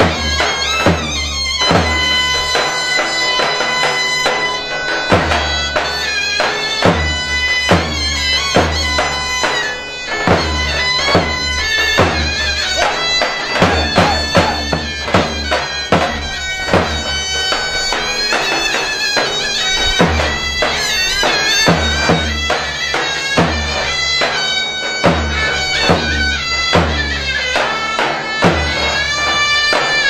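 Zurna and davul playing a slow zeybek dance tune: a loud, reedy shawm melody held and ornamented over deep, widely spaced drum beats.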